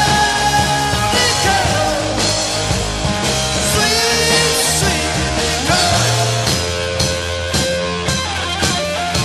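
Recorded rock song by a band, with electric guitar lines over bass and a steady drum beat.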